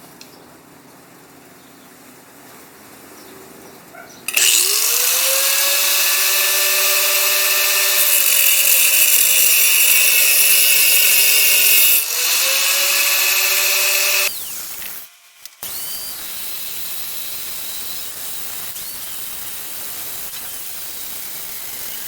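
An electric power tool spins up about four seconds in and cuts through the steel brackets welded to a control arm. It is loud and steady for about ten seconds, with a short break and restart near the middle, then dies away. A quieter steady noise follows.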